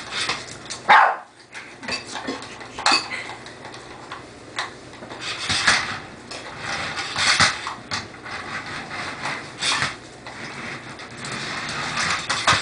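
A small puppy barking in several short, sharp yaps at a remote-controlled toy car, mixed with the clatter of the toy car's plastic wheels and body on a hard floor.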